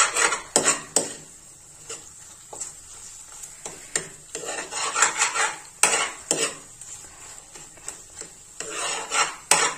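Steel spoon scraping and knocking against a non-stick kadhai while stirring grated potato frying in ghee, in three flurries of strokes: at the start, in the middle and near the end. Between the flurries the ghee sizzles faintly.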